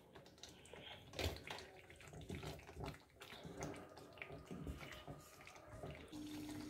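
Faint wet squelching and scraping of a wooden spatula stirring thick tamarind paste in a non-stick pot. A steady low hum starts near the end.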